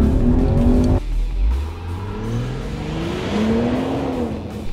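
Land Rover Defender P400's turbocharged straight-six petrol engine accelerating hard on a dirt track, its revs climbing in several rising sweeps. It is heard first inside the cabin, then, about a second in, from outside as the car pulls away.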